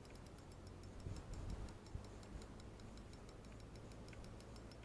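Spinning reel being cranked on a lure retrieve, its mechanism giving a quiet, even ticking of about four clicks a second. A few low bumps of handling or wind come about a second in.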